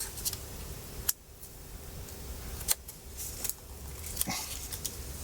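Small tools and fingers working inside an opened MacBook Pro: a plastic pry tool easing a part off the board, giving a few light sharp clicks and faint scrapes over a low steady hum.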